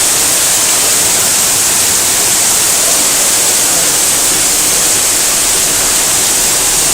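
Waterfall's falling water making a loud, steady, even rush.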